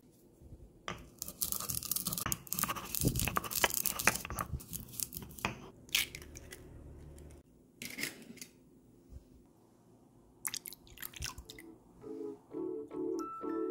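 Toasted sesame seeds being crushed with a pestle in a stone mortar, a gritty crunching for several seconds. Then a few sharp cracks as eggs are broken into a glass bowl, and soft keyboard music starts near the end.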